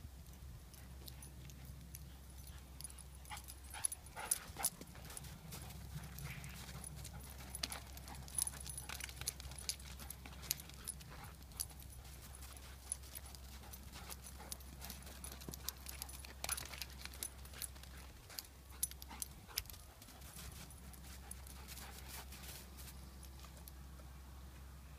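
A curly-coated dog's paws crunching and padding over crusty snow and ground as it runs and bounds, in irregular patches of footfalls over a faint low steady rumble.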